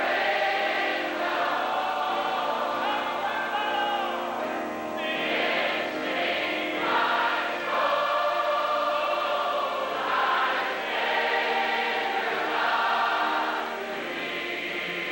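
A large choir singing a gospel hymn in long, held notes.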